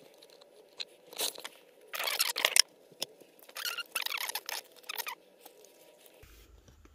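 A printed vinyl decal sheet and its paper backing being handled, crinkling and rustling in several short bursts, loudest about two seconds in.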